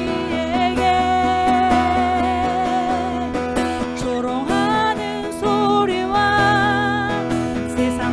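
A woman singing a worship song with long held notes and vibrato, accompanying herself on a strummed acoustic guitar.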